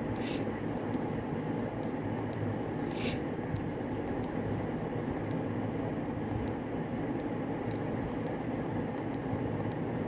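Steady background hum and hiss, like a fan or air conditioner running, with faint scattered clicks and two short hisses, one near the start and one about three seconds in. No timer beep is heard.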